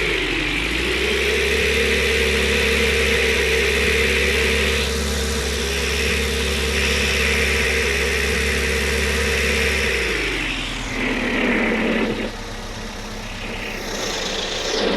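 An old pickup truck's engine running, long unused, with a steady high whistle over the engine note. The revs dip briefly at the start, then drop about two-thirds of the way through.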